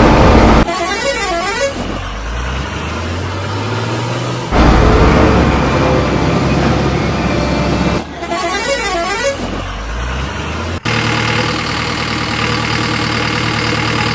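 Heavy-vehicle sounds joined by abrupt cuts: an engine running, a warbling up-and-down horn twice, and a steady horn for the last few seconds.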